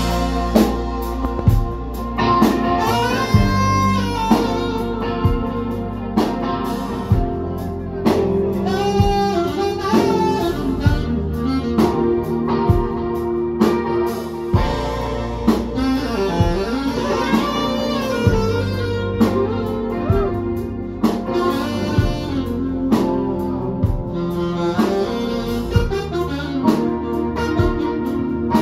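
Live band playing: saxophone and electric guitar with a steady drum beat.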